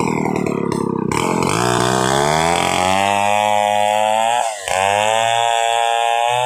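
Stihl 070 two-stroke chainsaw revving up from a lower speed to full throttle over the first few seconds and holding there, with a brief sharp dip in revs about four and a half seconds in before it picks straight back up.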